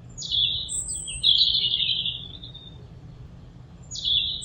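Bird song: a short falling note, a thin high whistle, then a buzzy trill lasting about a second. The same phrase starts again near the end.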